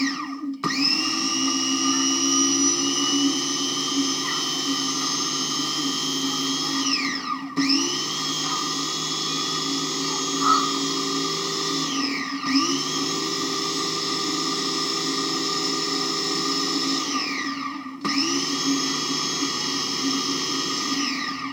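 Electric mini food chopper's motor whipping instant coffee, sugar and hot water into foam, run in pulses. It stops briefly near the start, then runs four times for about four to seven seconds each: each time the whine rises as it spins up and falls away when the button is released.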